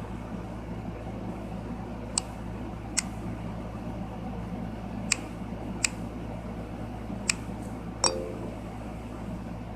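Slime being squeezed and worked by hand, giving six sharp little pops of trapped air, irregularly spaced, the strongest near the end, over a steady background hum.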